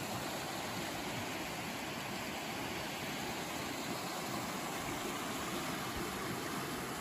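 Rocky creek cascading over stones, a steady rush of white water.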